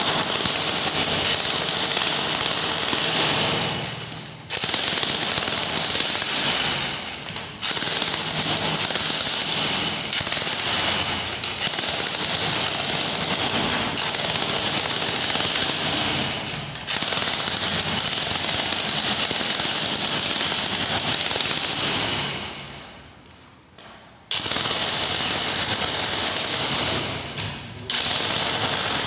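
Jackhammer hammering in long bursts, with a rapid pounding that stops briefly and starts again several times. A longer pause comes about two-thirds of the way through.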